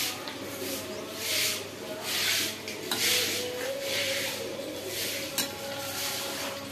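Potato slices being stirred with a metal slotted spoon in a steel pot of boiling water: repeated watery swishes, with one sharp clink of the spoon against the pot near the end.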